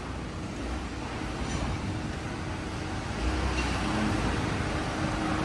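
Steady factory-floor machinery noise: a broad hiss over a low rumble with a faint steady hum, growing a little louder about three seconds in.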